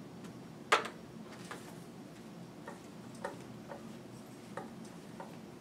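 A person moving about a quiet room with a faint steady hum: one sharp click about a second in, then scattered soft taps and clicks at irregular intervals.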